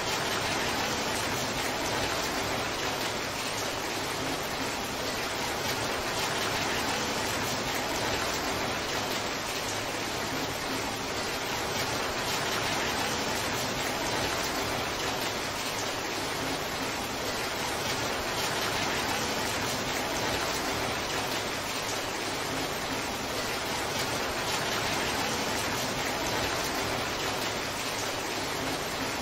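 Heavy rain falling steadily as a torrential downpour: a dense, even hiss that neither builds nor eases.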